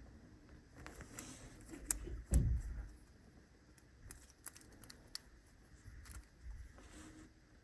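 Small clicks, taps and rustles of hands handling a soldering iron and LED strip wires on a desk, with one louder low bump about two and a half seconds in.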